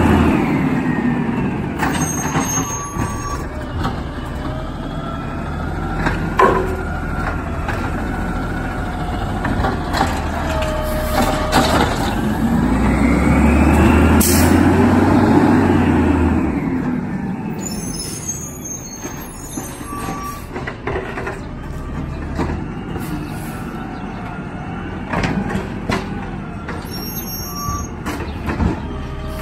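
CNG automated side-loader garbage truck driving past: its engine runs steadily, growing louder as it passes about halfway through and easing off as it pulls away, with several short sharp sounds along the way.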